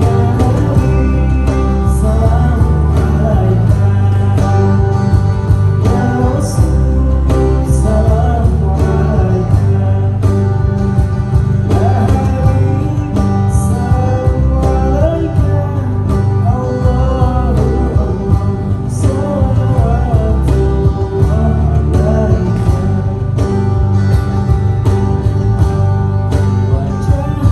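Live band playing a devotional sholawat song: guitar and bass under a steady percussion beat, with a wavering melody line weaving above.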